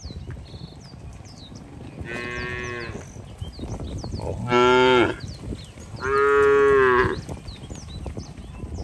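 Cattle mooing three times: a quieter moo about two seconds in, a short loud one near the middle, then a longer loud moo lasting about a second.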